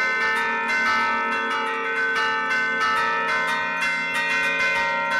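A set of church bells played from a wooden bell keyboard ('suono a tastiera'): hand-pulled levers and chains swing the clappers against the stationary bells. They strike in a quick melodic run, about three to four strokes a second, with each tone ringing on under the next.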